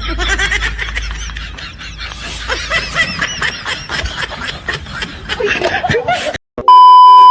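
People laughing and snickering in quick, high-pitched bursts. The laughter cuts off about six and a half seconds in, and a loud, steady beep tone follows.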